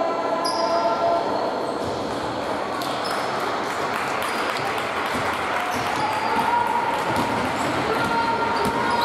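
Basketball play on a wooden sports-hall floor: the ball bouncing, sneakers squeaking, and voices calling in the background.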